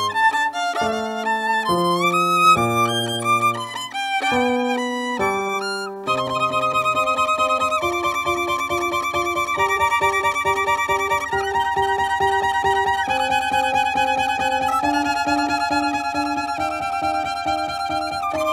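Violin playing with accompaniment that goes lower than the violin can. About six seconds in, the music turns from separate changing notes to a fuller, steadier passage with quickly repeated notes.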